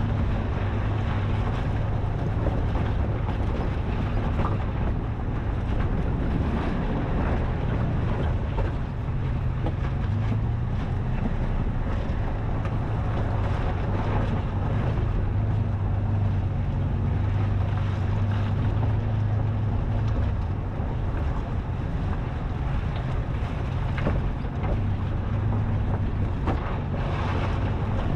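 Toyota FJ Cruiser's 4.0-litre V6 running at a steady low drone while driving on a dirt trail, with wind noise on the microphone.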